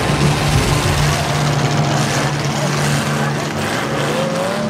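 Demolition derby cars' engines running together in a steady drone, over the general noise of the arena.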